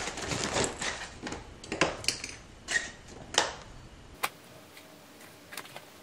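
Rustling and soft knocks of folded clothes being handled and pressed into a suitcase, busiest in the first three and a half seconds, then a few light clicks.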